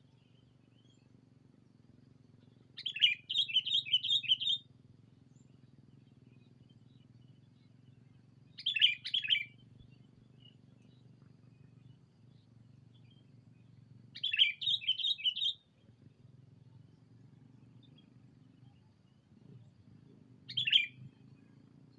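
Sooty-headed bulbul (kutilang) calling in loud, bright bursts of chirpy notes, four phrases several seconds apart, two of them quick runs of about five notes. These are a decoy bulbul's calls to draw in rival birds.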